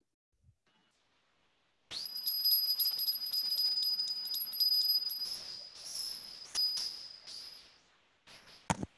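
A high-pitched ringing tone starts suddenly, holds steady for about three seconds, then wavers and breaks up before fading. A sharp click comes near the end.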